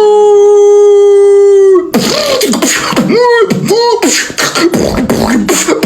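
Human beatbox: a long held vocal note, then, about two seconds in, repeated rising-and-falling wails like a siren over mouth-made kick and snare hits.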